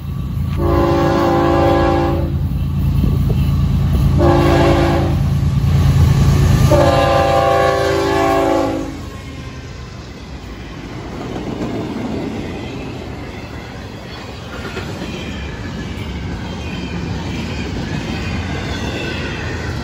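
Freight locomotive horn sounding three blasts, long, short, long, each a chord of several steady notes, over the loud rumble of the Florida East Coast Railway's GE diesel locomotives passing close by. After about nine seconds the horn and engine noise give way to the steadier rumble and clatter of intermodal container cars rolling past.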